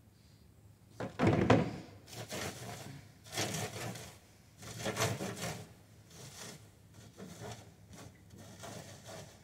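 A wood-framed seed-cleaning screen knocks and scrapes on the table about a second in. Then gloved hands rub dry Siberian motherwort seed heads over its metal mesh in a few strong strokes, followed by lighter rubbing.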